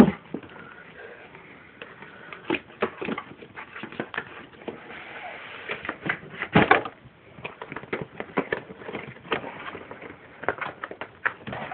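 Packaging of a pocket camcorder being opened and handled: irregular clicks, taps and rustles of cardboard and plastic, with one louder knock a little past the middle.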